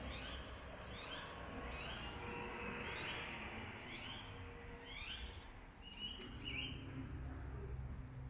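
A bird chirping over and over, short rising calls about once a second, over a steady low rumble of traffic.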